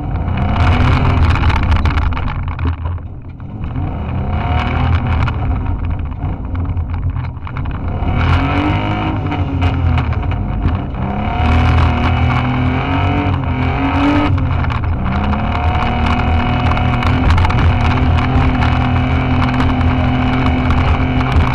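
Off-road competition car's engine heard from inside the caged cabin, revving up and easing off again and again as it is driven over rough dirt. Frequent sharp knocks and rattles from the bodywork run through it.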